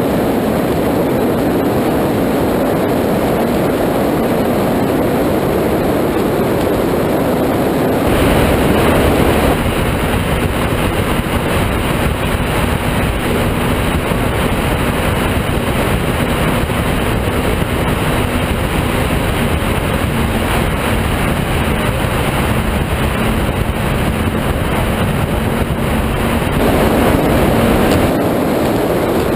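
Offshore go-fast powerboat running at speed: a loud, steady rush of wind and water with engine drone underneath. The sound turns brighter about eight seconds in, with a steady low hum, and changes back near the end.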